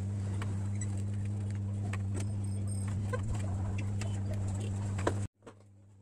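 Steady low electrical hum with scattered light clicks and taps of tools on a circuit board during desoldering. It cuts off abruptly about five seconds in, leaving a much fainter hum.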